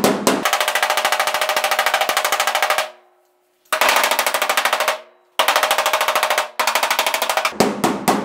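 A slapper tool beating the steel door skin of a 1967 Pontiac GTO in quick runs of about ten blows a second, broken by short pauses, with a few separate blows near the end. The sheet metal rings under the blows. The slapping knocks down a high spot while an inflated inner tube and a 2x6 push the panel up from behind.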